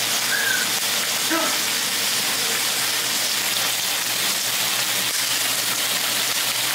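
Beef short ribs searing in smoking-hot oil in a cast-iron skillet, a steady, loud sizzle: the hard sear going on.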